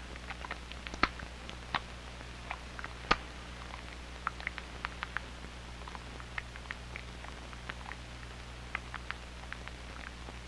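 Irregular clicks and pops, a few a second, over a steady low hum: the surface crackle and hum of a worn 16mm film's optical soundtrack. The sharpest pops come about one and three seconds in.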